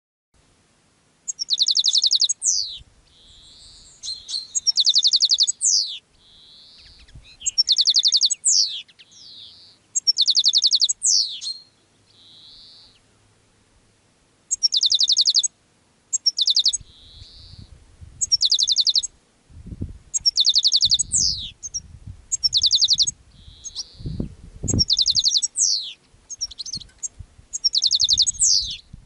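Male European goldfinch singing a courtship song: a string of short phrases, each a fast buzzy trill followed by quick downward slurs, about one every two seconds. Low rumbles sound underneath in the second half.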